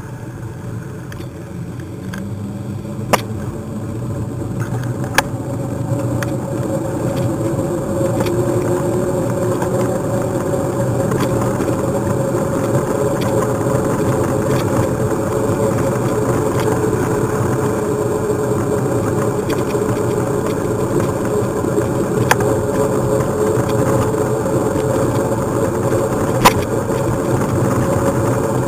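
Steady road and wind rumble from riding a bicycle on an asphalt lane: tyres rolling and wind buffeting the camera microphone. It builds over the first several seconds and then holds level, with a few sharp clicks.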